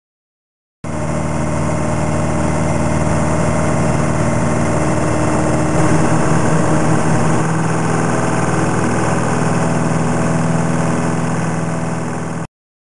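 Piper PA-28's piston engine and propeller running steadily, heard from inside the cabin as the plane rolls along a snowy ice runway. The sound cuts in abruptly about a second in and cuts off just before the end.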